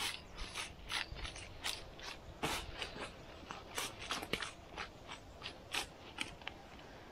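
An irregular run of short scrapes and clicks, two or three a second, with no steady tone between them.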